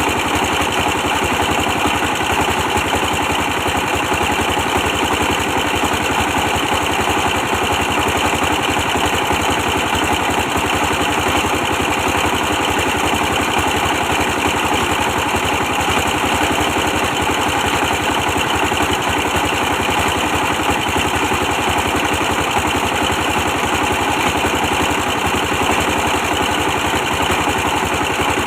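A 24 hp diesel engine running steadily at constant speed, with rapid even firing beats.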